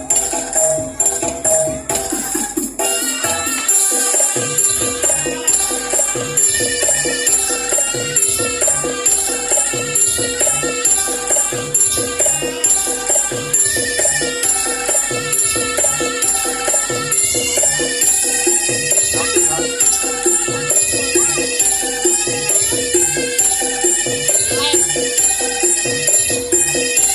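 Music with a fast, steady beat, constant jingling percussion on top and a melody line; the bass drops out briefly about four seconds in, then the beat comes back.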